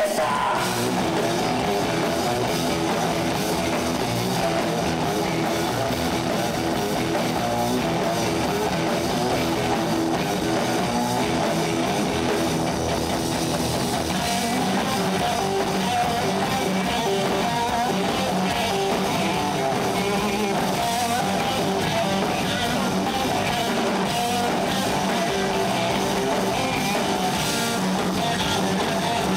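Live rock band playing: electric guitar over a drum kit.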